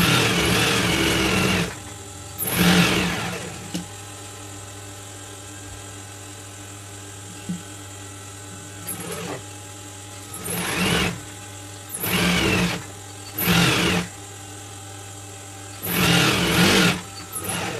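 Industrial sewing machine stitching a fabric strip in six short runs of about one to two seconds each, with a steady motor hum in the pauses between them.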